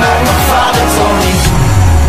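Background music with a heavy beat of deep bass hits. About a second and a half in, the beat drops away, leaving one low bass note held.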